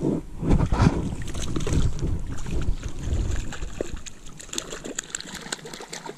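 A hooked tiger trout splashing and thrashing at the surface of the water as it is drawn into a landing net, with quick sharp splashes in the second half. A low rumble of wind on the microphone fills the first few seconds.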